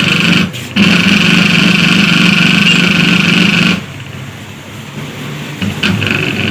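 Electric pedestal fan running with an abnormal noise, a steady hum with a high whine over it; it breaks off briefly about half a second in, drops much quieter about four seconds in, and picks up again near the end. The owner traces the noise to a bearing sitting loose in its seat.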